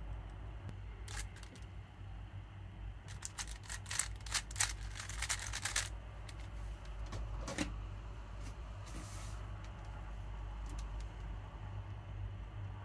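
GAN 12 Maglev magnetic 3x3 speedcube being turned by hand, its plastic layers clicking and clacking, with a quick flurry of turns about three to six seconds in and a few single clicks elsewhere. A steady low hum runs underneath.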